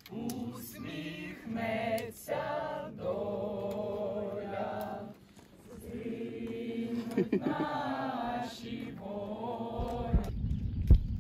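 A group of people singing together in unison, in long held and wavering notes, phrase after phrase with short breaks. The singing stops about ten seconds in, giving way to a low rumble and a few knocks.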